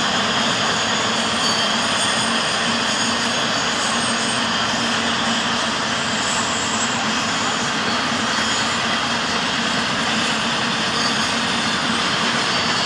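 Double-stack intermodal freight cars rolling across a girder bridge: a steady roar of wheels on rail, with a faint steady whine over it.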